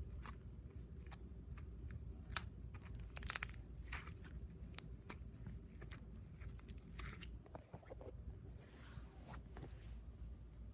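Slime being squeezed and worked by hand, giving faint irregular sticky clicks and pops, with a longer squelch near the end.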